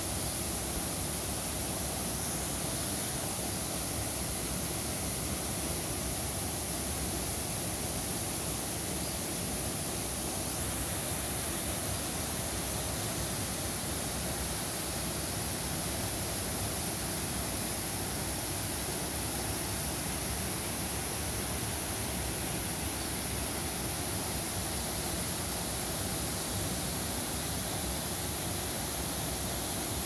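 Spring-fed waterfall pouring out of a cave mouth in a rock bluff: a steady, unbroken rush of falling water.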